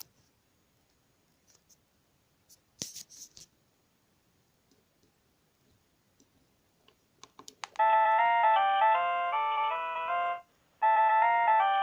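A few faint clicks and a knock, then a Sony Ericsson J300 mobile phone plays a polyphonic ringtone melody through its small speaker, starting about two-thirds of the way in, breaking off briefly and starting again as the tune loops.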